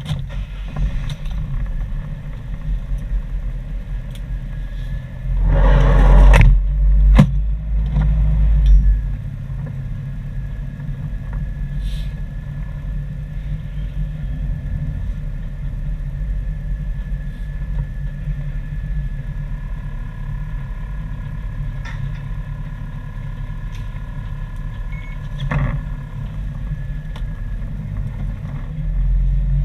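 Engine of a USPS mail delivery truck running, heard from inside the cab as a steady low rumble. It swells much louder for a few seconds from about five seconds in, with a couple of sharp knocks.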